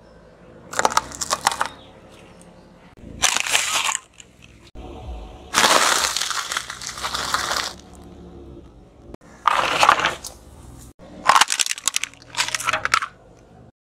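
A car tyre rolling over and crushing a series of objects, heard as about five separate crunching, crackling bursts. The longest comes in the middle, as a cellophane-wrapped package is flattened. Sharp cracking and snapping near the end comes as a plastic toy breaks.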